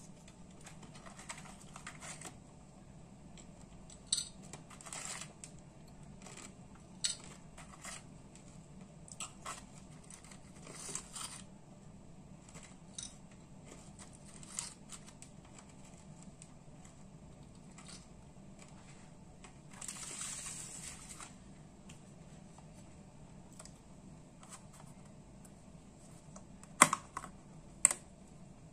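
Light clicks and brief crisp rustles of thin rice crackers being picked up and handled in a cardboard box, scattered through the stretch, with two sharp, loud clicks near the end.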